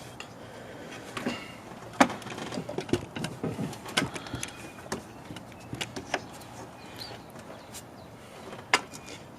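Scattered clicks, knocks and light rattles of hands and tools handling parts in a car's engine bay, with sharp knocks about two, four and nine seconds in.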